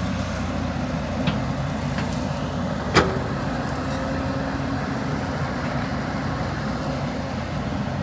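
Hyundai 220 excavator's diesel engine running steadily under load as the machine swings and digs into the hillside. A single sharp knock comes about three seconds in, with a couple of lighter clanks before it.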